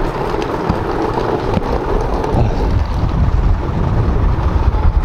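Wind buffeting the microphone: an uneven low rumble that grows stronger toward the end.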